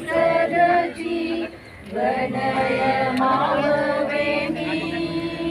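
Voices singing a slow, sustained melody, with a short break about a second and a half in.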